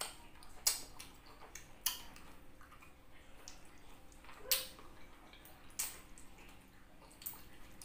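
Wet mouth sounds of someone eating rambutan flesh: about five sharp, wet smacks and clicks of the lips, spread a second or so apart, over quiet chewing.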